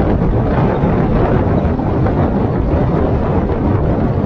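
Steady low rumble of tyre and wind noise from a Kia K3 (Cerato) car driving along a city road.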